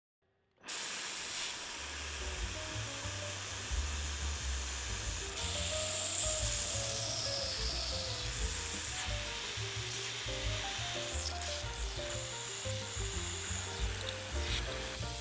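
Background music with a moving bass line, over the steady hiss of a CNC milling machine drilling holes in a steel flat bar. Both start after a short silence at the beginning.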